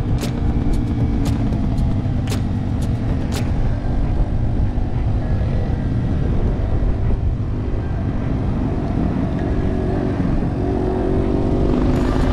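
Yamaha TW200's single-cylinder engine running under way, with heavy low wind rumble on the camera microphone. Sharp clicks come several times in the first few seconds, and the engine note rises near the end.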